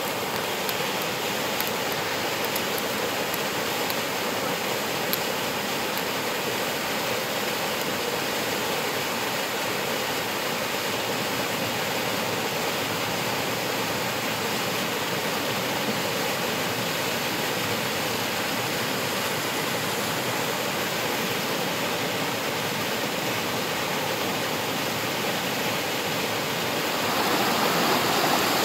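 Waterfall: a steady, even rush of falling water, growing a little louder near the end.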